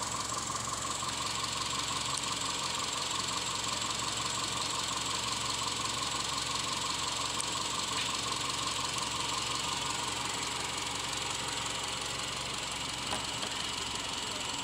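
2007 Subaru Outback's 2.5-litre EJ25 flat-four petrol engine idling steadily.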